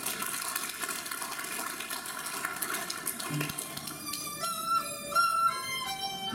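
Chinese traditional orchestra playing: a dense sustained ensemble texture with a single low drum stroke a little past the middle, then a high bowed huqin melody with wide vibrato stepping from note to note.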